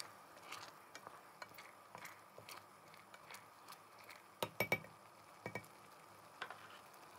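Wooden spoon stirring rose petals in sugar syrup in a stainless steel pot, with soft scrapes and light clicks, then a quick cluster of sharper knocks of the spoon on the pot about four and a half seconds in and a few more single knocks after.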